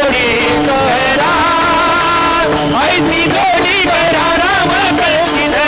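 Men's chorus singing a Marathi abhang in a devotional kirtan, the melody wavering in ornamented runs, with small hand cymbals (taal) struck along and a steady held note underneath.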